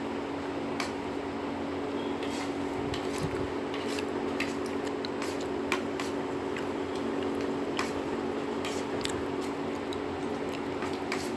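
Eating puffed rice with ghugni: scattered small clicks and crunches from the plate and mouth, a dozen or so spread irregularly, over a steady mechanical hum.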